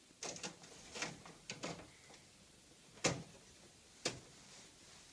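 Plastic filters being slid back into a heat pump's indoor unit: a few short plastic scrapes, then two sharp clicks about a second apart.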